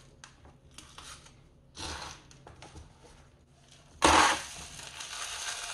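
Small clicks and scrapes, then about four seconds in a sudden loud rattling rush of coarse masa grit (decomposed granite) poured into an earthenware ttukbaegi pot, settling into a softer rustle.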